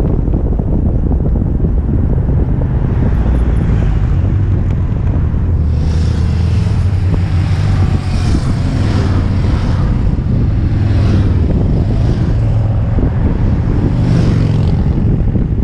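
Heavy wind buffeting on the microphone during a fast downhill ride on a kick scooter. Oncoming motorcycles pass with their engines running, heard from about six seconds in until near the end.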